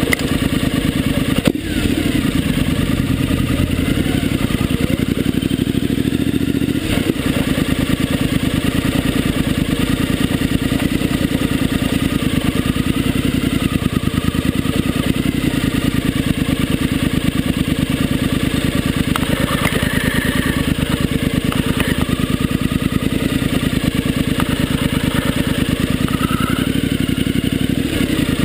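Motorcycle engine running at low speed with a steady, rapid exhaust pulse as the bike rolls slowly over gravel and grass. There are two sharp knocks, one a second or so in and another about seven seconds in.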